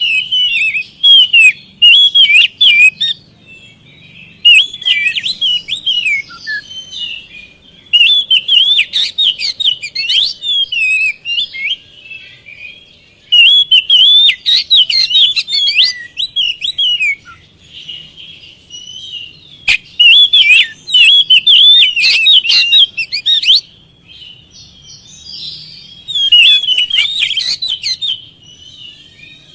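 Oriental magpie-robin (kacer) singing: loud phrases of rapid, varied whistles and chirps, each two to three seconds long, separated by short pauses. A single sharp click about twenty seconds in.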